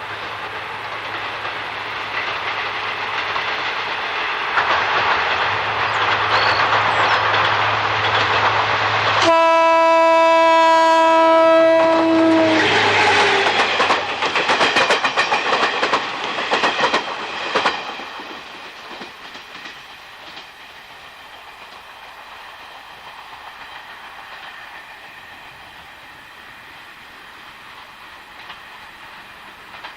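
A train approaching and passing close by. It sounds one long horn blast of about three seconds at its loudest, then runs past with a fast clickety-clack of wheels over rail joints that dies away after about six seconds.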